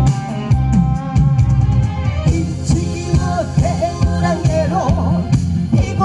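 A woman singing a Korean song into a microphone, amplified through a PA, over an instrumental accompaniment with a steady beat.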